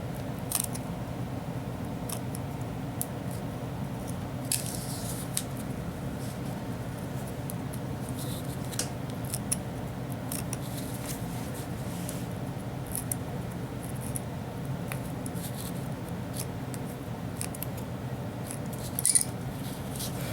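Scissors cutting through cardboard in scattered short snips and clicks, over a steady low hum.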